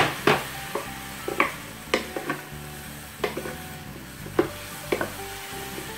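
Wooden spatula stirring cauliflower florets in a frying pan, knocking and scraping against the pan at uneven intervals, over a steady sizzle from the hot pan with a little water added.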